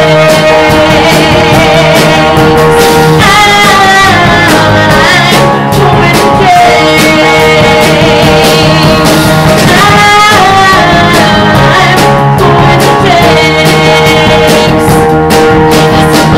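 A woman singing loud, held notes, backed by a live band of drum kit, electric bass and keyboard playing a rock-style song.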